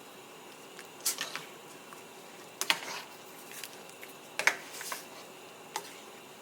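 Kitchen handling noises: four sharp clicks and taps, a second or two apart.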